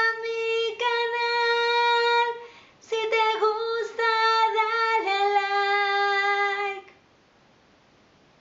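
A woman singing long, held high notes in two phrases, the last note lower, breaking off about seven seconds in.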